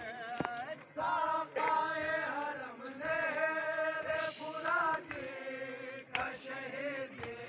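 Men chanting a mourning lament (noha) in long held phrases, the pitch bending and wavering, with brief breaks between lines.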